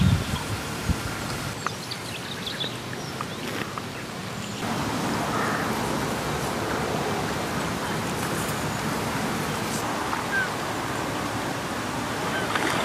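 Lakeside outdoor ambience: a steady rushing background with a few short bird calls. The background gets louder about four and a half seconds in.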